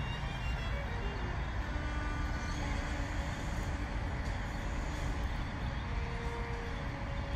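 Steady low rumble of city traffic, with faint scattered tones above it and no clear bird calls.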